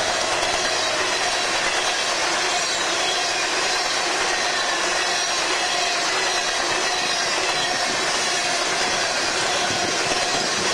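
Aluminium coal gondolas of a BNSF freight train rolling past close by, a steady noise of steel wheels running on the rails.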